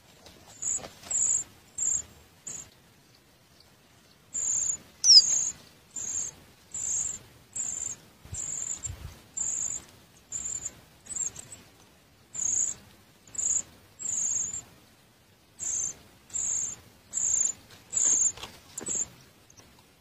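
Thin, very high-pitched squeaky bird calls at a ground nest, short and evenly repeated about one and a half times a second. They break off for a couple of seconds near the start and once more later, and one louder call about five seconds in slides downward.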